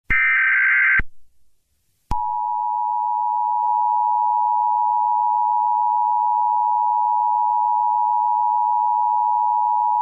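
Emergency Alert System tones: a harsh, screeching digital data burst of about a second (the SAME header), a second of silence, then the steady two-tone EAS attention signal, which starts about two seconds in and holds.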